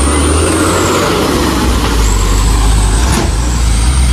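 Truck engines running with a steady deep rumble as box trucks drive along a muddy road, over a constant hiss of heavy rain. A thin high whine rises and falls, and there is one sharp click about three seconds in.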